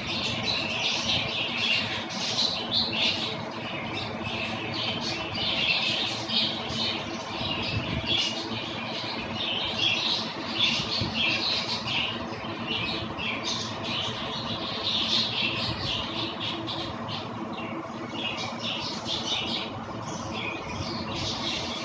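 Many small cage birds chattering and squawking together, a dense unbroken stream of short calls overlapping one another.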